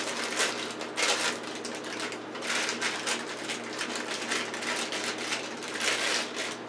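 Package of dry muffin mix rustling and crinkling in repeated bursts as it is shaken and emptied into a stainless steel mixing bowl.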